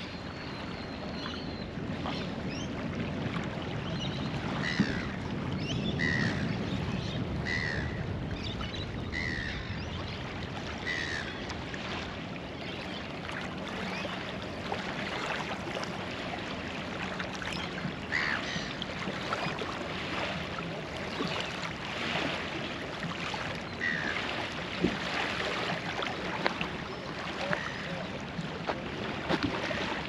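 Steady outdoor background noise, with a bird giving a series of short harsh calls, about one every second and a half, from about five to eleven seconds in, and a couple more later on.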